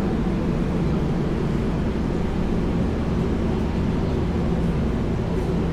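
Steady low rumble of a running vehicle, engine and road noise with no sudden events.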